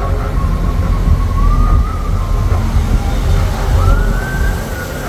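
Steady low rumble of a moving vehicle with wind on the microphone. Over it a thin high tone wanders up and down, rising about four seconds in.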